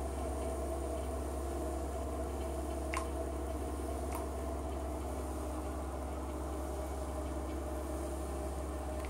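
Bath bomb fizzing in bathwater, a steady fizz over a constant low hum, with two faint clicks about three and four seconds in.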